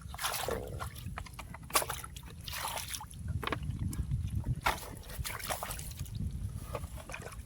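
Sloshing and splashing in shallow muddy water, with irregular short splashes over a low rumble.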